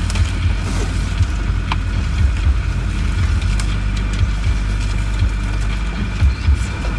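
Land Rover diesel engine running at a steady low speed, heard from inside the vehicle as it crawls along a rutted lane. A few sharp clicks and knocks come through over the drone.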